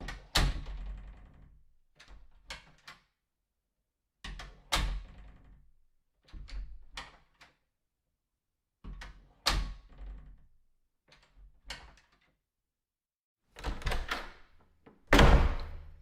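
A door being opened and shut over and over, each time with sharp latch clicks and a thud, in about seven separate rounds with silence between them. The loudest shut comes near the end.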